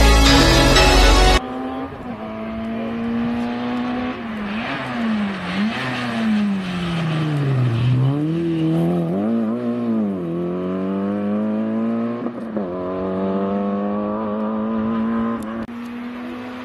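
After music that stops about a second and a half in, the Peugeot 106 XSi rally car's four-cylinder petrol engine revving hard through the gears at racing speed, its pitch dipping with each gear change and falling to a low point about eight seconds in as the car slows through a bend, then climbing again under full acceleration.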